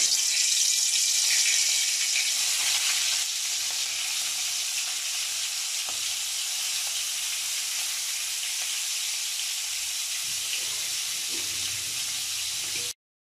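Hilsa fish heads sizzling as they are laid into hot oil in a kadai. The sizzle starts suddenly, is loudest over the first few seconds, then settles into a steady hiss and cuts off near the end.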